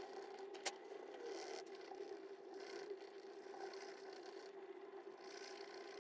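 Coloured pencil scratching on paper as an area is shaded in, faint, swelling and fading with the strokes. A steady faint hum lies under it, and one sharp click sounds about two-thirds of a second in.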